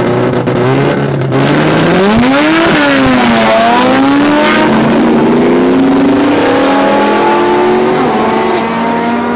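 Mazda RX-7's rotary engine at full throttle as the car launches down a drag strip: the revs climb, drop sharply at a gear change about three seconds in, climb again, then hold steady as the car pulls away.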